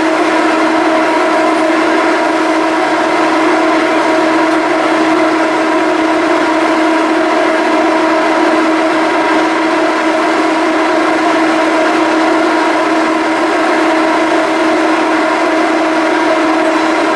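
A BC Ferries Salish-class ferry's engines and machinery running with a steady, even drone, a hum of fixed tones over a rushing noise.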